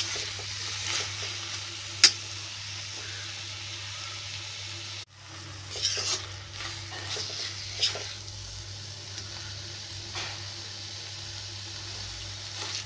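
Pumpkin sabzi sizzling in a kadhai as a metal spatula stirs and scrapes through it, mixing in the last of the sugar near the end of cooking. A few sharp clicks of the spatula against the pan, the loudest about two seconds in, and the sound breaks off for an instant midway.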